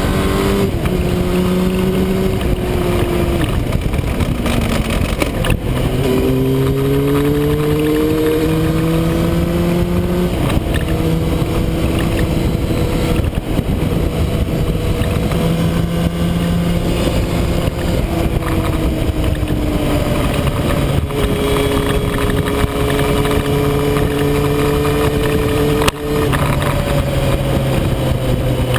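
Motorcycle engine running at road speed, its revs rising and falling with throttle and gear changes, with a drop and a long steady climb a few seconds in and another change about two-thirds of the way through. Heavy wind rush over the microphone runs under the engine note.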